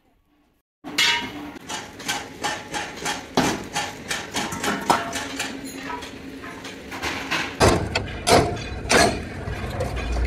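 Hammer blows on the cargo bed of an old Bedford truck being taken apart, a rapid run of sharp strikes about three a second that start about a second in, with a few heavier, deeper blows near the end.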